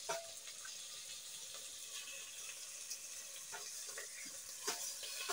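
Faint, steady sizzling of goat meat frying, with a few soft clicks of handling in the second half.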